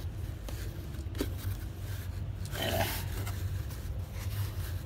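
A cotton t-shirt being unfolded and handled, the fabric rustling and rubbing, with a louder rustle about halfway through. A steady low hum runs underneath.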